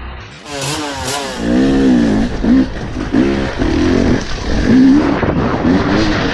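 Enduro dirt bike engine revving up and down in quick throttle blips, about once a second, as it is ridden over rough, rocky ground.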